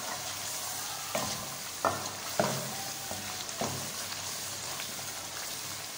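Tomato, ginger-garlic and chilli masala sizzling in oil in an aluminium pot as it is fried down, stirred with a wooden spoon that knocks against the pot about four times.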